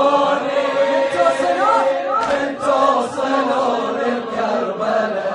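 Wordless chanting by male voices in a Shia mourning elegy: one note held steadily as a drone while a melodic line rises and falls above it.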